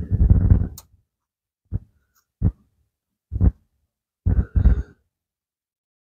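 A man's strained grunts of effort while forcing a part into place by hand: one long grunt at the start, then short ones about a second apart, two close together near the end.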